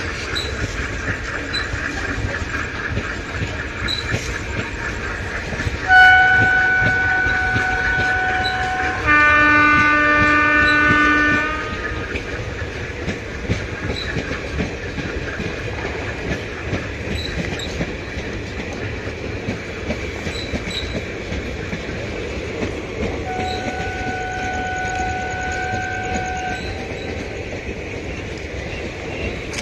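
ALCO diesel locomotive running with a steady low rumble and scattered light clicks. About six seconds in it sounds a high horn for about three seconds, followed at once by a lower, fuller horn for about two and a half seconds; a second, softer high horn blast comes near the end.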